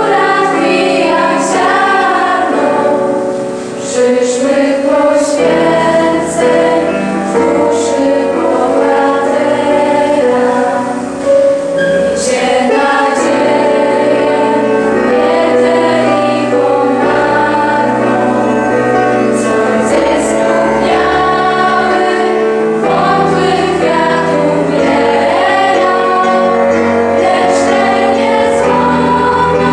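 Music: a choir singing a song, with held, wavering notes and sung words throughout.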